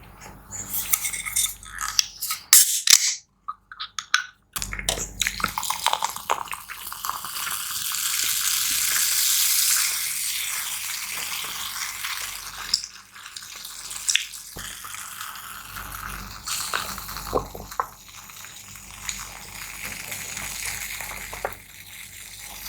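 Close-miked eating sounds: utensils clicking against a dish and sauced noodles being stirred, with a long wet, noisy stretch in the middle. Everything drops to silence for about two seconds soon after the start.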